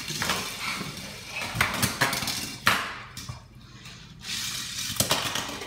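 A dog's claws skittering and clicking on a hardwood floor as it scampers about, with a few sharp knocks scattered through.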